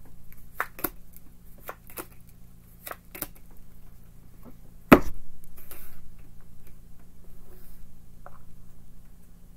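Tarot cards being drawn from the deck and laid onto a wooden tabletop: a series of light taps and card clicks. About five seconds in comes one sharp knock on the table, the loudest sound.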